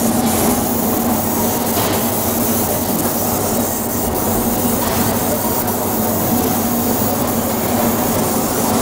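Laser engraving machine running as it marks text into a phone case: a steady mechanical noise with a constant low hum.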